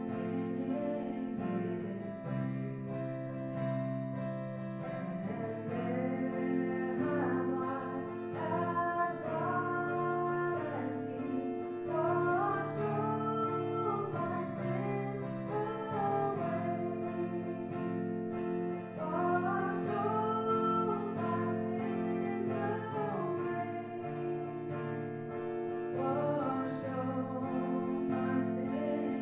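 Worship song during a church service: voices singing a slow melody over acoustic guitar.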